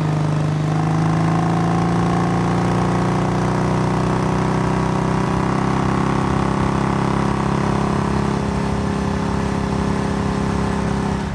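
Sport motorcycle engine running steadily, its note shifting slowly in pitch.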